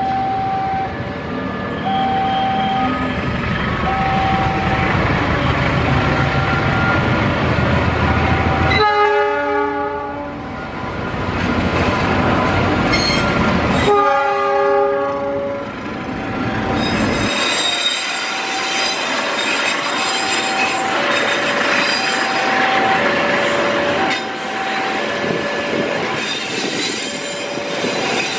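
KAI CC206 diesel-electric locomotives running past at the head of passenger trains, with a steady rumble of engine and wheels. The locomotive's chord horn sounds about nine seconds in and again around fourteen seconds. Throughout, a short electronic beep repeats about once a second.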